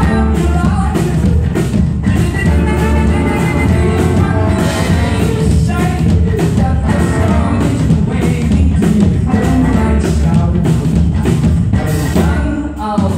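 Live band playing loudly, with violin, trombone, acoustic guitar, bowed upright bass and drum kit, and a singer's voice in the mix. The drums keep a steady beat, and the music dips briefly just before the end.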